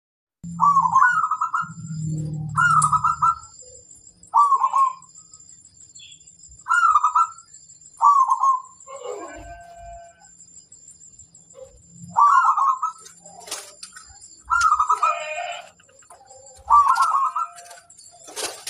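Zebra dove (perkutut) cooing: about eight short phrases with a quick trill, repeated with gaps of one to four seconds.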